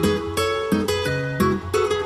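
Background music: plucked string instruments playing a lively melody, notes struck several times a second.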